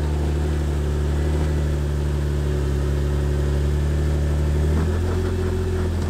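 Off-road vehicle engine running steadily at low revs, with a brief shift in pitch about five seconds in.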